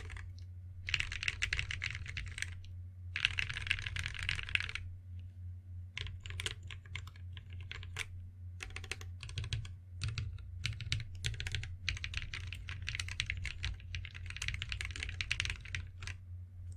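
Typing on a cocot46 mechanical keyboard with AKKO CS Radiant Red linear switches. There are quick runs of keystrokes with short pauses, slower single key presses in the middle, then fast typing again that stops about a second before the end.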